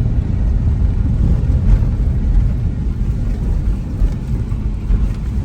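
Steady low rumble of a moving car: engine and road noise heard from inside the vehicle.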